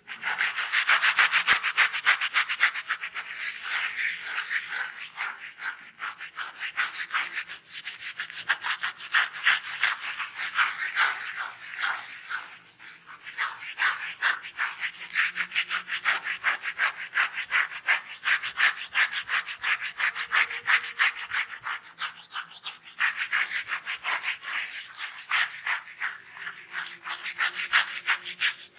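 Rapid scratching of a scalp through the hair to loosen dry dandruff, several short strokes a second, with brief pauses now and then.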